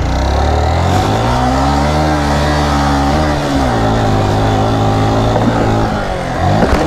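Motorcycle engine running hard as the bike sets off for a jump run. The pitch climbs about a second in, holds, steps down a little past the middle and holds again, then falls near the end.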